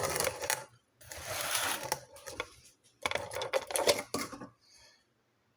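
Hard plastic rattling and clicking in three bursts as hands work the filter compartment of a Kangen Leveluk SD501 water ionizer, getting ready to unlock the filter.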